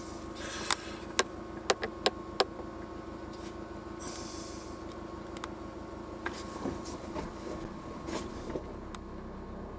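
Car idling or creeping at walking pace, its engine giving a steady low hum. A quick run of about six sharp clicks comes in the first couple of seconds, with a few fainter ones later.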